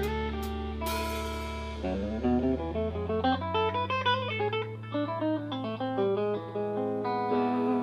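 Live band music: a held bass note and chord, then, about two seconds in, a fast run of picked guitar notes that settles onto a held chord near the end.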